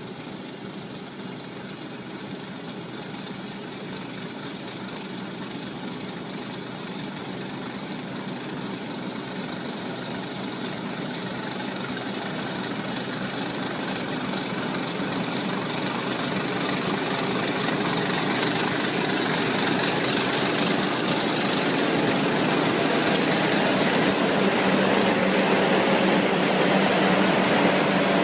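Tractor engine running steadily, growing gradually louder throughout.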